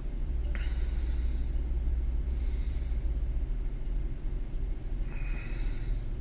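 Low, steady rumble of vehicle engines, with three short high hisses: one about half a second in, one about two and a half seconds in, and one about five seconds in.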